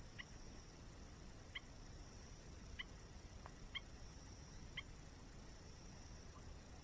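A bird giving short, sharp chirps, five of them about a second apart, faint over a steady low haze and a thin high hiss.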